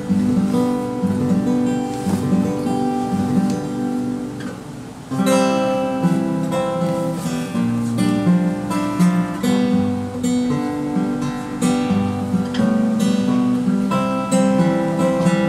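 Solo acoustic guitar playing an instrumental introduction. The first few seconds are softer, ringing notes; about five seconds in it becomes louder, with frequent sharp picked and strummed strokes in a steady rhythm.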